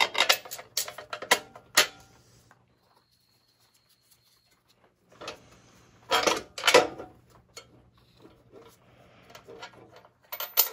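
Small metal hardware clinking and clicking as bolts and shims are handled and fitted into a chrome bumper's mounting bracket, in two bursts with a quiet gap between and a few lighter ticks near the end.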